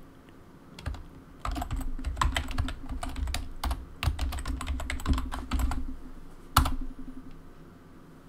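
Typing on a computer keyboard: a quick, uneven run of keystrokes entering a login password, then one louder single click about six and a half seconds in that submits the login.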